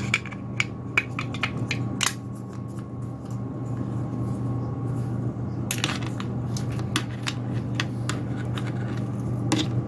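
Light clicks and taps of small computer parts being handled, scattered and irregular, with a brief cluster of louder clicks about six seconds in, over a steady low hum.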